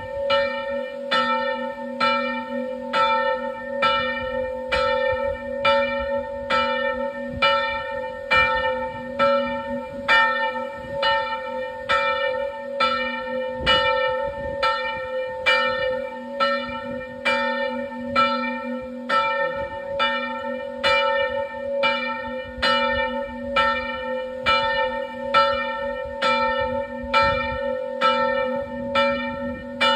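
Church bells ringing steadily, struck a little under once a second, with the hum of the bells sounding on between strikes.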